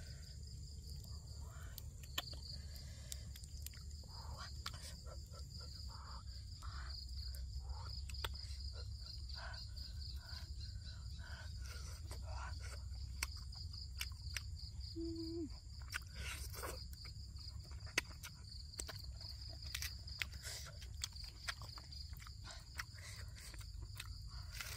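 Insects chirping in a fast, steady pulsing trill with a second high steady tone, over close chewing and small mouth clicks from someone eating.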